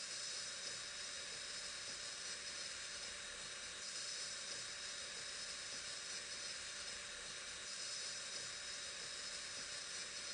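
A steady hiss that swells gently about every four seconds.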